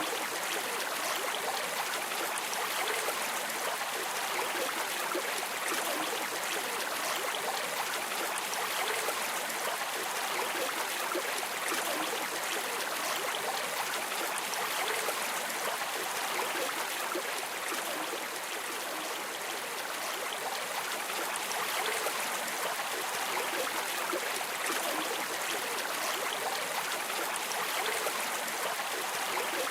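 River water streaming and babbling in a steady, unbroken rush, with more hiss than rumble.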